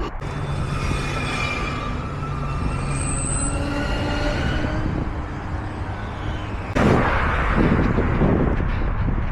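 A passing electric train with its motors whining in several steady tones over rolling noise. About seven seconds in, a sudden, louder rush of noise takes over, pulsing irregularly.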